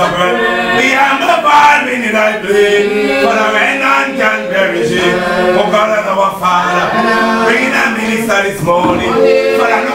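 Spiritual Baptist congregation singing a chanted hymn together, men's voices prominent.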